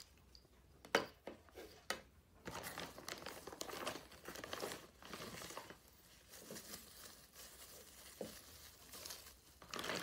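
Plastic packaging bags crinkling and rustling as a new wiring harness is pulled out and unwrapped, with a few light knocks of parts being set down on the workbench in the first two seconds.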